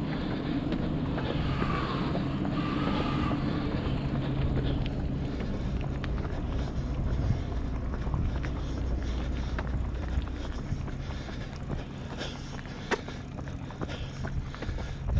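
A steady low engine hum with outdoor background noise, fading over the last few seconds. A single sharp click comes near the end.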